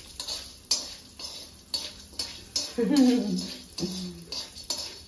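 Steel spoon stirring corn kernels in a steel kadhai, with repeated scrapes and clinks of metal on metal. A brief voice sounds about three seconds in.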